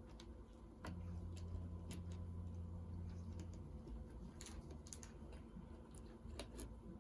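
Faint, scattered clicks and taps of plastic Lego pieces being handled and fitted together. A low hum comes in about a second in and fades after a few seconds.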